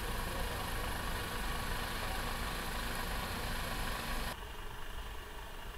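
Mercedes-Benz heavy truck running slowly: a steady low rumble with hiss. A little past four seconds in, the hiss drops away abruptly.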